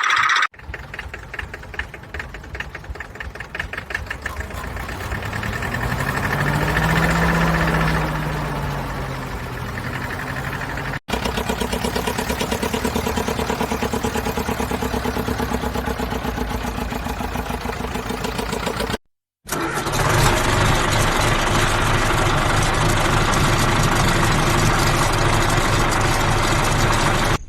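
A motor-vehicle engine starting and running, revving up and back down once before settling into a steady idle. The sound cuts off abruptly twice, at about 11 s and again at about 19 s, and picks up again each time.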